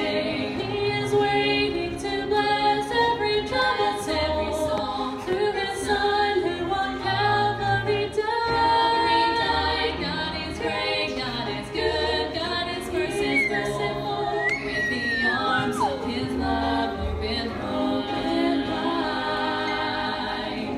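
Female gospel vocal trio singing a song in three-part harmony into handheld microphones.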